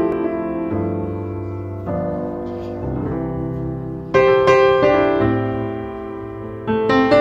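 Background piano music: slow chords over low bass notes, each struck and left to ring and fade before the next.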